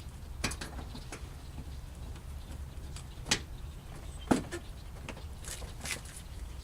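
Scattered clicks and knocks of hands and tools working on a car's front end, with two sharper knocks about three and four seconds in, over a low steady rumble.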